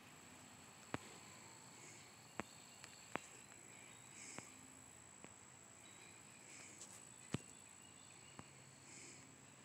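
Near silence: a faint steady hiss with a thin high-pitched whine, broken by a few sharp, isolated clicks.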